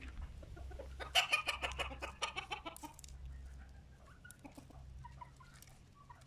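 Chickens clucking: a quick run of rapid, repeated clucks starting about a second in and lasting some two seconds, then fainter scattered clucks.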